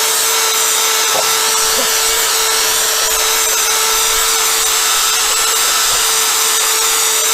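Power tool spinning a sanding disc, wet sanding a hazed plastic windscreen under running water: a steady motor whine over a hissy high end.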